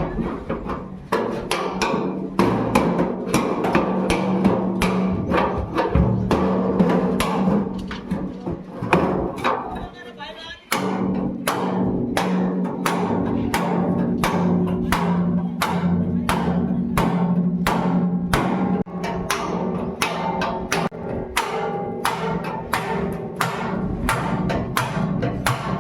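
Background music with a steady percussive beat, about two strikes a second, over held low tones.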